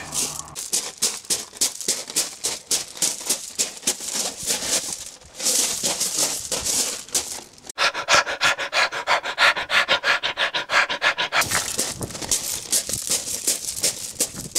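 A person panting hard and fast, out of breath from running, about four breaths a second. For a few seconds past the middle the breaths turn into voiced gasps.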